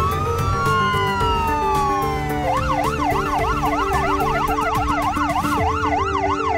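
Ambulance siren sounding a slow wail, rising then falling, then switching about two and a half seconds in to a fast yelp that rises and falls about three times a second.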